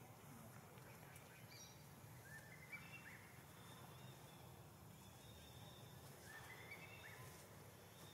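Near silence: faint outdoor ambience, with a faint rising bird call about two and a half seconds in and another a little past six seconds.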